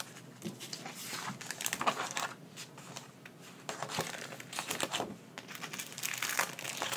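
Clear plastic packaging crinkling and rustling in the hands, in irregular bouts, as metal cutting dies are slid out of their plastic sleeve.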